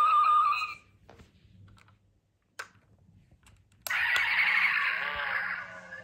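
Tinny electronic sound effects from a die-cast model car's built-in sound chip and tiny speaker: a wavering tone fades out in the first second, a few light clicks follow, and about four seconds in a louder sound effect starts suddenly as the model is pressed.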